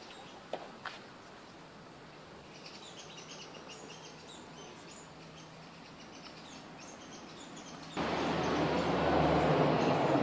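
Small birds chirping repeatedly in the creekside bush, with two sharp clicks near the start. About eight seconds in, a much louder rushing noise starts abruptly and carries on.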